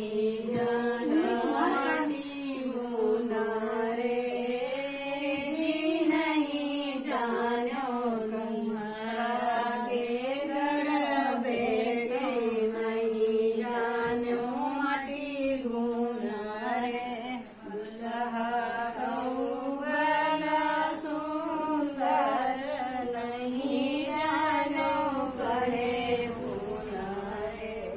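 Several women singing a traditional wedding folk song together in a steady, chant-like melody of long phrases, with a short break about two-thirds of the way through.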